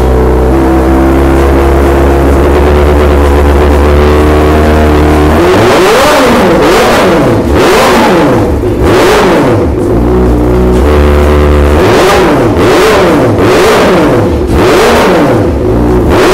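Kawasaki ZX-4RR's 399 cc inline-four running through a Prospeed Python series slip-on exhaust, very loud. It idles steadily for about five seconds, then the throttle is blipped again and again, each rev rising and falling about once a second, with a brief return to idle midway. The recording itself is clipped and distorted.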